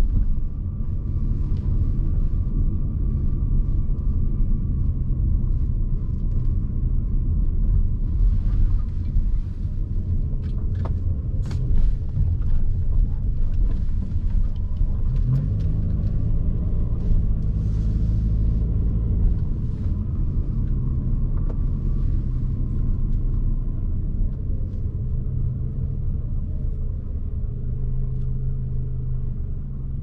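Car engine and road rumble heard from inside the cabin while driving, low and steady. The engine note rises about fifteen seconds in as the car speeds up and settles again a few seconds later.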